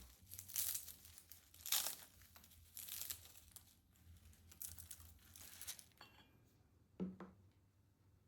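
Crinkling and rustling of something being handled, in short bursts about once a second, then a single soft knock about seven seconds in.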